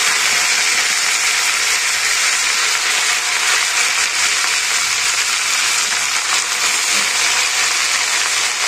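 Freshly washed amaranth greens sizzling loudly in hot mustard oil in a kadhai, a steady hiss from the water on the leaves hitting the oil.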